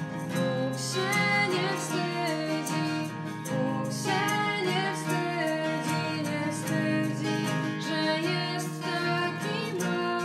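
A small group singing a Christmas carol to two strummed acoustic guitars, with a djembe and a shaker keeping an even beat. The voices come in about a second in, over the running guitar accompaniment.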